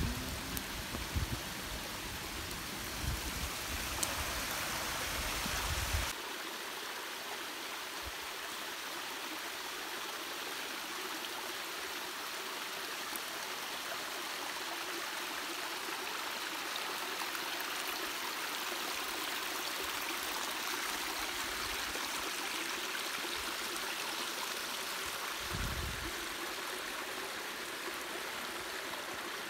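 Steady rushing of flowing water, like a stream or small rapids. For about the first six seconds, low wind rumble on the microphone sits under it, then stops abruptly.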